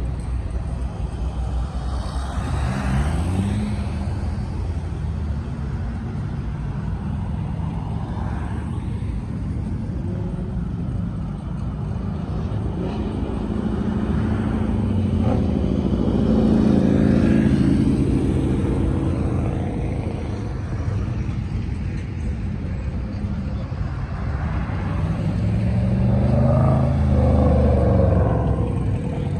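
Cars driving past on a multi-lane road, with engine and tyre noise. Two passes stand out as louder, one about halfway through and one near the end, their engine notes falling in pitch as they go by.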